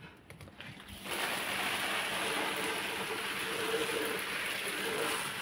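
Water pouring from a plastic watering can onto potted plants and soil: a steady splashing hiss that starts about a second in and keeps going.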